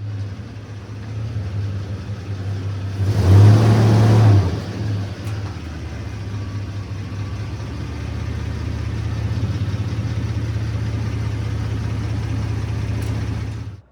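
Supercharged 3.4-litre V6 engine of a 2001 Toyota 4Runner running, with one brief rev about three seconds in, then settling back to a steady run until it cuts off abruptly.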